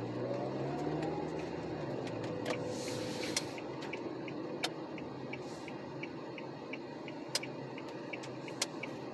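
Engine hum and road noise inside a moving vehicle's cabin, steady throughout, with a few sharp clicks and a short hiss about three seconds in.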